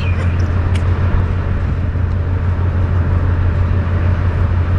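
Steady low rumble of a ship's engines and deck machinery heard on the open deck, mixed with a hiss of noise, with a light click about a second in.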